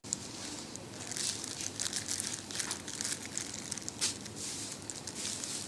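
Packaging crinkling and rustling in irregular crackly bursts as a present is handled and unwrapped.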